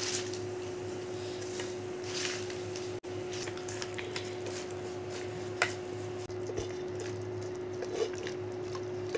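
A wooden spoon stirs fresh haakh (collard greens) into simmering spiced liquid in an aluminium pressure-cooker pot, with a few sharp knocks of the spoon against the pot. Under it runs a steady hum from the induction cooktop running at 2000.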